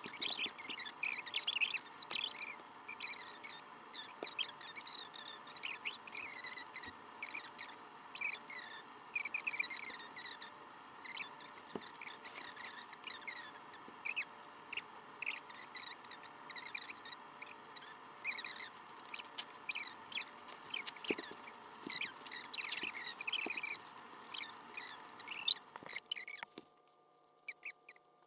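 Rubber bands being handled and stretched onto a rubber band ball: many small irregular scratchy clicks, squeaks and snaps, over a steady hiss that stops near the end.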